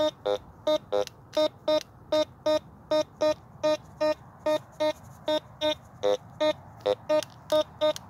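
Teknetics T2 metal detector beeping over and over, about three short pitched beeps a second, with a few beeps in a different tone, as the coil is swept across a buried target. The repeated tone signals a deep lead bullet that reads a strong 80 on the detector.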